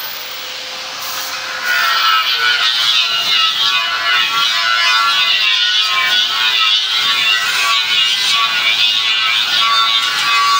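Compressed-air paint spray gun hissing as it sprays paint onto a metal frame. It is softer for about the first second and a half, then runs on steadily.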